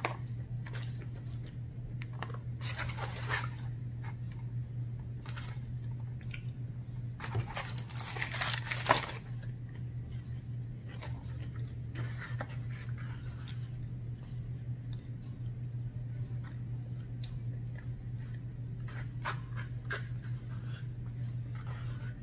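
Close-up eating sounds: chewing and crunching of fried food with rustling of the paper basket liner and foil, louder in two bursts, the longer one about seven to nine seconds in. Scattered light clicks from a plastic fork in a small cup, over a steady low hum.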